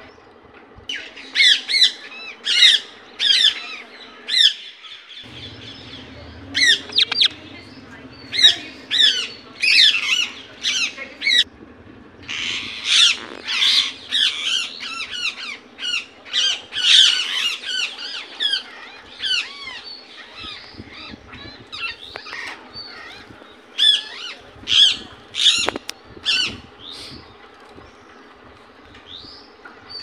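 Indian ringneck parakeet calling in quick runs of short, shrill squawks, with a couple of brief pauses, the calls thinning out near the end.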